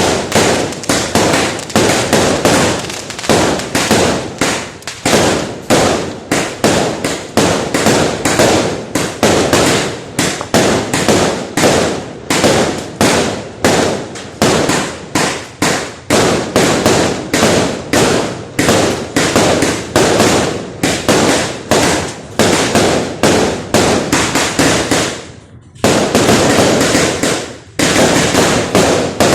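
Fireworks going off in a dense, continuous barrage of sharp bangs and crackles, several a second, with a brief lull about 25 seconds in before the bangs start again.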